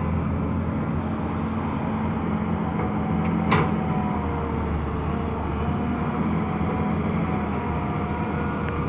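Tracked hydraulic excavator's diesel engine running steadily as the machine swings and digs into soil, with one sharp clank about three and a half seconds in.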